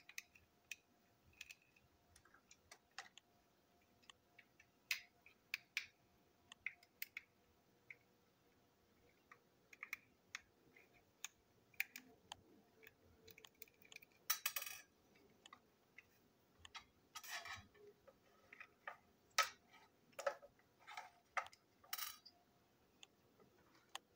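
Scattered small plastic clicks and knocks as a plastic toy train engine is handled and its body shell is pried off the chassis, with two short rattling scrapes a little after halfway.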